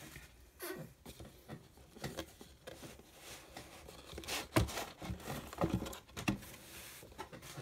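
Cardboard Elite Trainer Box being handled as its Player's Guide is slid out: scattered light taps, scrapes and rustles of card, with a few sharper knocks in the second half.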